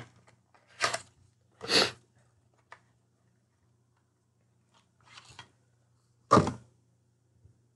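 Plastic wrapping on a cosmetic stick crinkling and tearing by hand in a few short bursts, with a small click between them; the loudest burst comes near the end.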